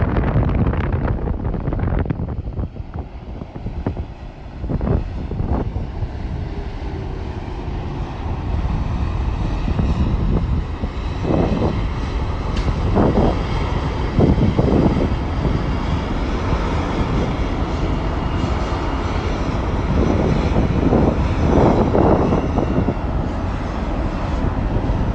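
Jet engine noise of a Cargolux Boeing 747 freighter on its landing run, a steady dense rush that grows stronger about ten seconds in, with gusts of wind on the microphone.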